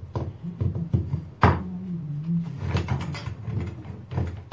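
Light clicks and clinks of a wire cable and small metal parts being handled on a workbench, with one sharp click about a second and a half in. A low wavering hum runs underneath.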